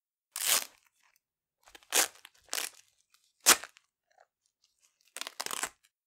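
Velcro hook pieces ripped off a roller covered in loop fabric: five separate rips, some drawn out and some quick. The quickest and loudest comes a little past the middle, and the last is the longest.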